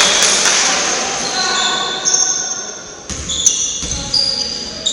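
Indoor basketball game in a gym: a basketball bouncing on the court and short, high squeaks of players' shoes on the floor, over the echoing din of the hall.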